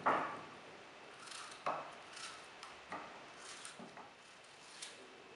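Small kitchen knife cutting half-centimetre pieces from a peeled long gourd held in the hand, the pieces dropping onto a plate: about six irregular cuts and light knocks, the loudest right at the start.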